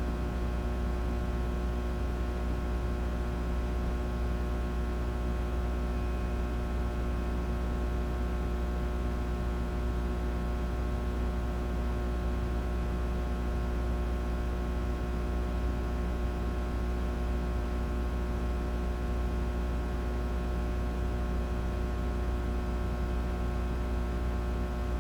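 Aging fluorescent light fixture buzzing: a steady electrical hum with many overtones, unchanging throughout.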